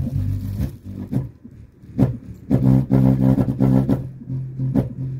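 Song with a heavy bass line and drum hits played through a bare 5.25-inch woofer driven by a small TDA2030 mono amplifier board, dipping briefly about a second in. The bass hits hard but is not very loud.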